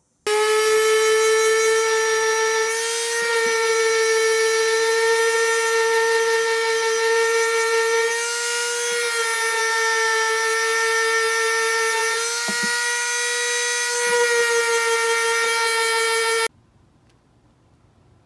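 High-pitched whine of a small high-speed power tool motor, such as a rotary tool, running steadily with a slight waver in pitch; it starts and cuts off abruptly.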